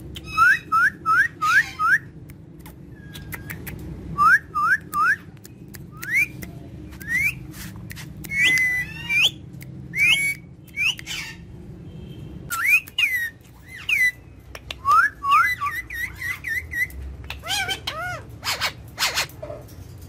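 Alexandrine parakeets calling: quick runs of short, rising whistled chirps, often four or five in a row, in bursts throughout, mixed with sharp harsh squawks.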